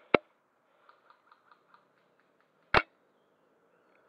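Two sharp cracks about two and a half seconds apart from a spring-powered bolt-action airsoft sniper rifle (VSR-10-type replica) firing, with faint clicks between the shots.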